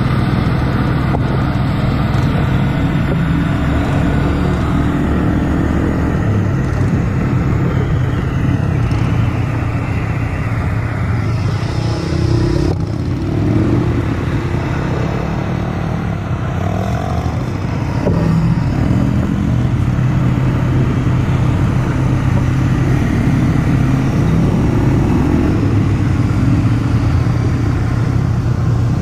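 ATV (quad bike) engine running steadily while being ridden, its note shifting up and down a little with the throttle.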